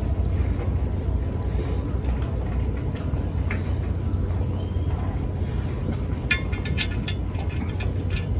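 Steady wind rumble on the microphone, with a quick run of sharp metallic clicks about six seconds in as a wrench works a nut onto the anchor mount's bolt.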